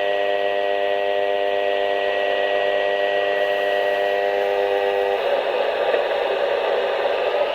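Emergency alert tone over a radio receiver: a steady electronic tone of several pitches sounding together, which cuts off about five seconds in. After it comes an even radio static hiss until the warning message starts.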